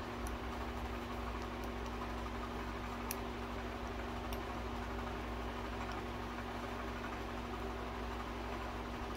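Steady low room hum and hiss, with a few faint light clicks from the first second to about four seconds in.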